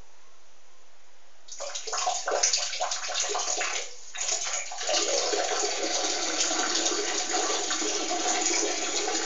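A person urinating: a stream splashing into water starts about a second and a half in, in uneven spurts. It breaks off briefly, then runs as a steady stream until it cuts off suddenly.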